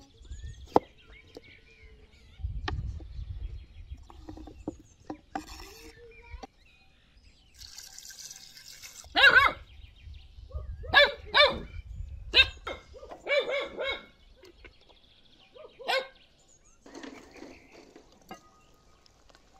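A knife knocking on a wooden cutting board a few times as potatoes are chopped, then an animal calling about six times in short, pitched calls, the loudest sounds here.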